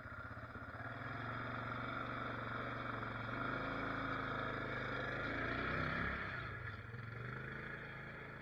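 A single-cylinder four-stroke ATV engine drives past close by and pulls away. Its sound builds over the first few seconds, peaks about six seconds in with a shift in pitch, then fades.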